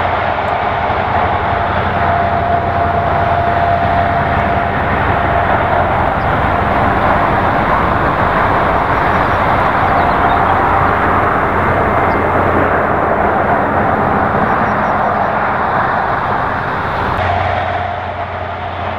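Diesel-hauled freight train passing: the locomotive followed by a long string of loaded hopper wagons rolling over the rails, a steady loud noise with a faint steady tone in it. It drops away near the end as the last wagon clears.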